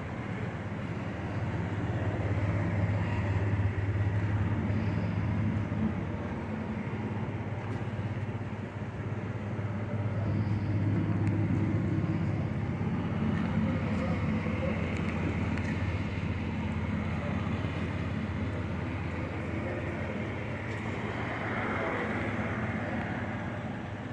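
A vehicle engine running with a steady low hum, growing louder and easing off a few times.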